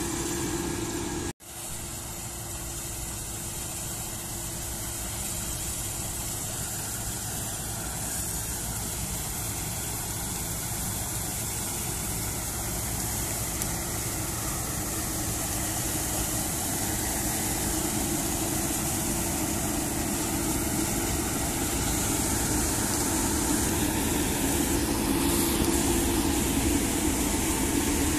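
Claas Lexion combine harvester running under load while harvesting, a steady drone of engine and threshing machinery that grows louder toward the end. The sound breaks off briefly about a second in.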